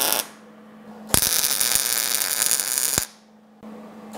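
MIG welder arc crackling in bursts as tack welds are laid on a bracket: a burst cutting off just after the start, a longer one of about two seconds from about a second in, and another beginning at the very end. A steady hum continues underneath.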